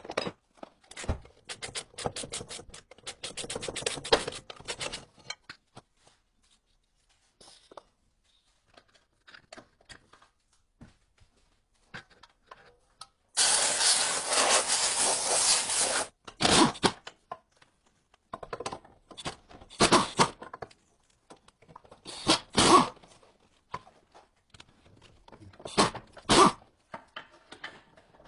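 Metal hand tools scraping, clinking and knocking against a car's wheel hub and suspension parts in irregular bursts, with a loud continuous scraping rush lasting about two and a half seconds midway.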